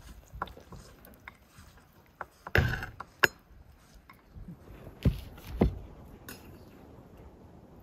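Slotted metal skimmer clinking and knocking against a ceramic plate as boiled khinkali dumplings are set down. There are a handful of separate knocks, the loudest a little after two and a half seconds and twice around five seconds in.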